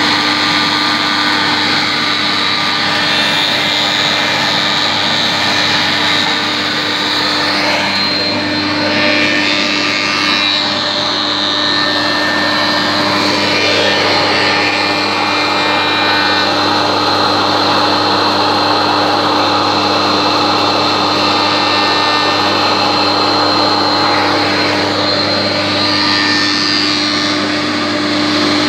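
Spindle moulder running with a Vario Feed 3 power feeder driving a wooden disc past the cutter to profile its edge: a loud, continuous machine noise with a steady hum.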